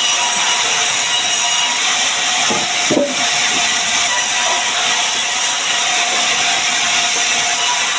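Power saw cutting sengon wood: a loud, steady cutting noise with a brief break about three seconds in.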